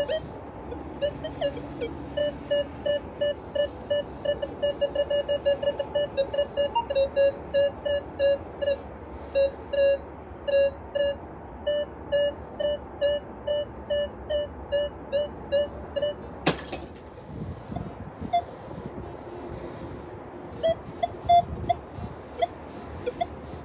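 Minelab Equinox 900 metal detector giving a long string of short beeps of one pitch, about three a second, as a rusty bottle cap is swept back and forth over its coil. A single sharp knock comes a little past halfway, followed by a few scattered beeps near the end as iron junk is passed over the coil.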